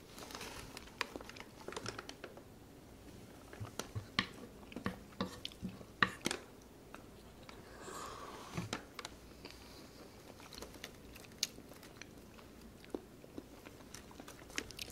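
Close-miked chewing of fried rice, with soft wet mouth sounds and scattered sharp clicks.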